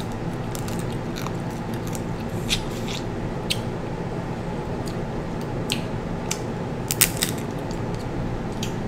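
Close-up eating sounds: crab legs being bitten, sucked and cracked, with scattered sharp clicks and mouth smacks, the loudest about seven seconds in, over a steady low hum.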